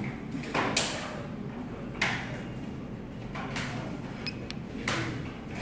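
Handling noise from a handheld billing terminal: several soft taps and rubs from fingers on its case and keypad, with a short high beep about four seconds in.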